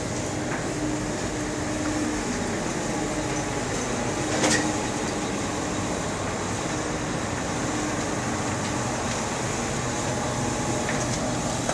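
A large semi-truck fire burning with a steady rushing noise, and a short sharp pop about four and a half seconds in.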